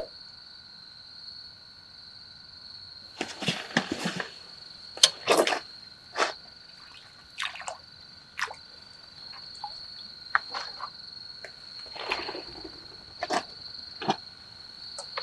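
Crickets trilling steadily as a continuous high chirring, with a dozen scattered short knocks and rustles over it.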